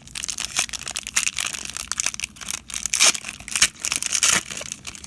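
Foil wrapper of a trading-card pack crinkling and tearing as it is opened by hand, a dense crackling rustle with louder crackles about three and four seconds in.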